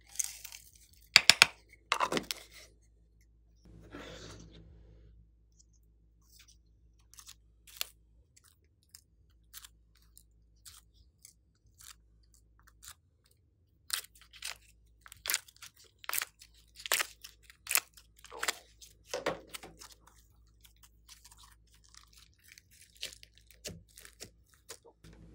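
Short crunchy crackles and clicks, spaced out with quiet gaps: hands prying slime, clay and makeup pieces out of plastic moulds and palettes into a glass bowl of slime and pressing it. The loudest clusters come about two seconds in and again in the middle.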